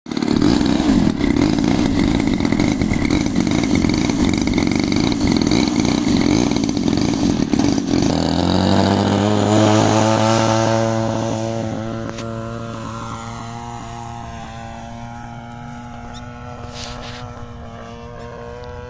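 Model aircraft's RCGF 26cc two-stroke gasoline engine running at high throttle close by, loud and rough. About eight seconds in it settles into a clear droning note that fades as the plane moves away, its pitch sliding down.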